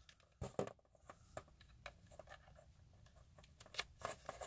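Test lead plugs being pushed into the jacks of a Centech digital multimeter: a few faint plastic clicks and scrapes, with a couple about half a second in and a cluster near the end.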